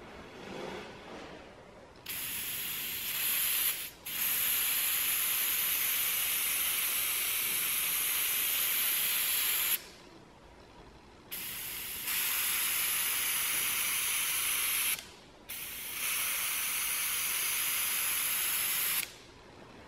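Cheap gravity-feed airbrush spraying primer, a steady hiss of air and atomised paint. It comes in three long passes of several seconds each, with short pauses between them; the first pass is briefly interrupted near four seconds in.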